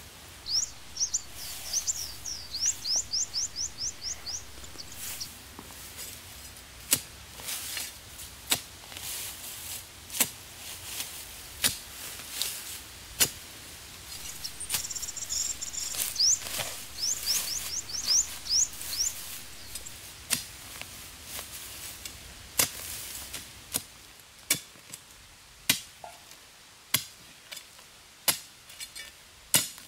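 Axe chopping wood: irregular sharp blows, roughly one every second or so. A small bird's rapid high trill is heard twice, near the start and about halfway through.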